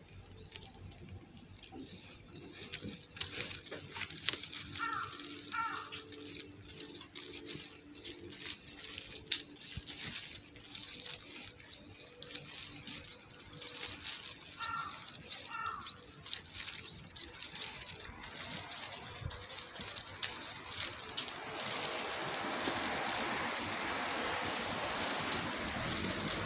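Outdoor ambience with a steady high insect drone. There are two brief double chirps, a few seconds in and again about halfway through. A rushing hiss grows louder over the last few seconds.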